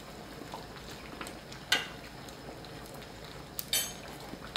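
Quiet eating at a tabletop hot pot: chopsticks dipping into a steel pot of simmering broth on a portable gas stove. A short sharp sound comes about two seconds in and a brief hissy one near the end, over a low steady background hiss.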